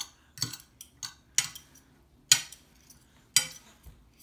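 Metal forks clinking and scraping against a plate while noodles are mixed: about six sharp, irregularly spaced clinks.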